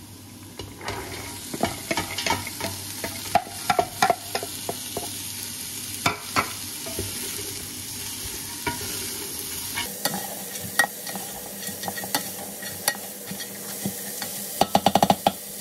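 Chopped carrots, onion, celery and garlic sizzling in hot oil in a large pot, with a spoon stirring and scraping against the pot. The sizzle turns brighter about ten seconds in, and there is a quick run of about eight knocks near the end.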